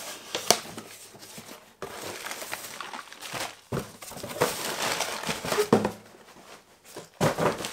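Cardboard shipping box being opened and handled by hand: flaps rustling and scraping in irregular bursts, with a few sharp knocks, as a plastic mailer envelope is taken out of it.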